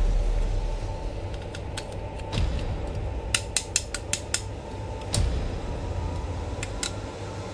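Plastic Carnage action figure handled and posed by hand, its limbs turned, with scattered sharp plastic clicks and a quick run of about six clicks a few seconds in, over a low steady rumble.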